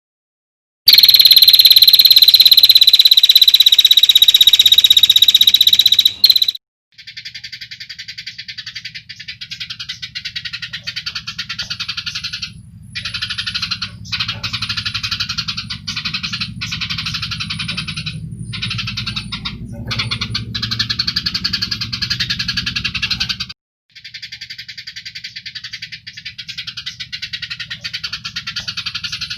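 Recorded animal calls: a loud, steady shrill buzz for about five seconds, then a rapid pulsing rattle, broken by several short pauses, over a low hum.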